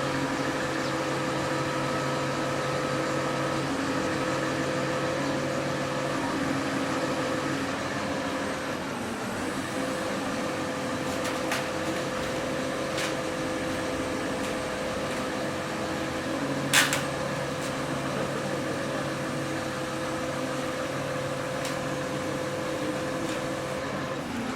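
A machine running with a steady hum. A single sharp clank about seventeen seconds in is the loudest sound, with a few fainter clicks around it.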